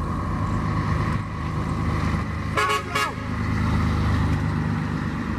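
Diesel engine of a bonneted truck tractor running steadily as it drives past, with two short horn toots about halfway through.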